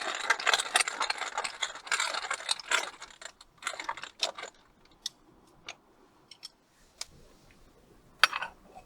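Rapid clicking and rattling of small hard objects being handled, thinning out to scattered single clicks after about four seconds, with one sharper click near the end.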